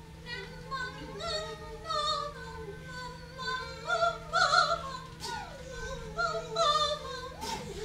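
Operatic singing: a voice sings phrases with vibrato over faint steady background tones.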